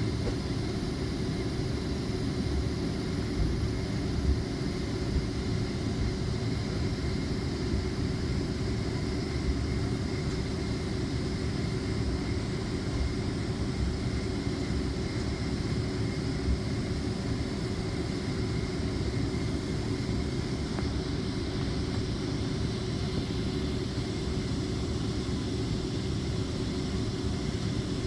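Steady low rumble of a Boeing 767-400ER's engines at low power, heard inside the passenger cabin with a faint air-conditioning hiss above it, holding level without any spool-up.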